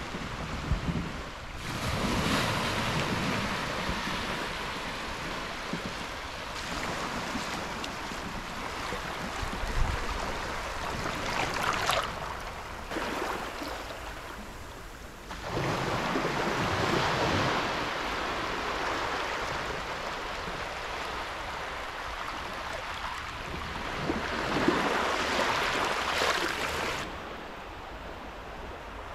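Small waves lapping and washing up on a shallow beach, the wash swelling and fading, with wind on the microphone. The sound changes abruptly a few times.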